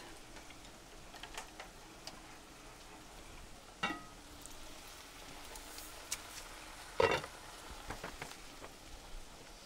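Onions and peppers sizzling faintly as they sauté in frying pans. About four seconds in the crock pot's lid gives a light clink with a short ring, and about seven seconds in there is a louder knock.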